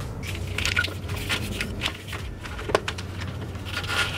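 Scattered light clicks and knocks of a small wooden control box and its cable being handled, over a low steady hum.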